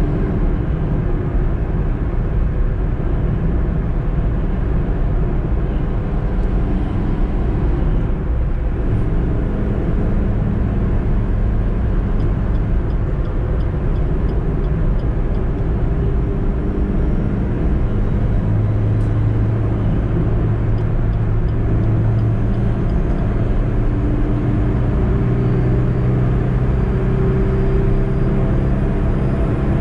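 Suzuki EECO's 1.2-litre four-cylinder petrol engine running under way, with steady tyre and road noise. The engine note rises and falls with speed and grows stronger in the second half.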